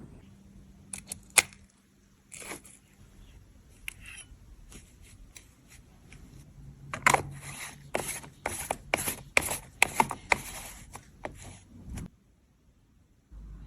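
Small hard clicks, taps and scrapes from handling cosmetic containers and tools during a makeup repair. A few sharp clicks come near the start, then a dense run of quick clicks and scrapes builds through the second half and stops suddenly.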